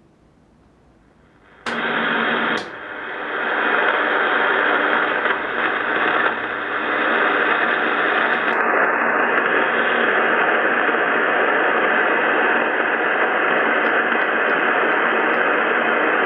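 Drake R77 HF receiver's loudspeaker: two clicks about two seconds in, then loud, steady static hiss from a band with no station tuned in. The hiss's top end narrows slightly a little past the middle.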